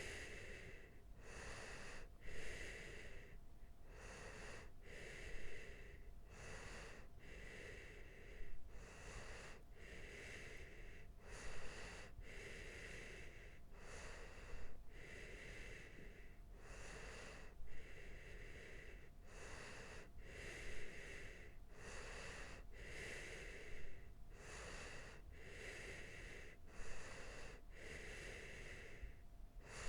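A sleeping person's slow, regular breathing, each breath in and out taking about three seconds.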